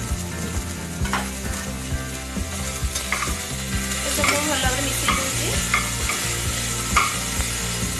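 Chopped onion, tomato and ginger-garlic sizzling in hot oil in a pressure cooker while a metal spatula stirs them. The spatula scrapes and taps against the pot about once a second.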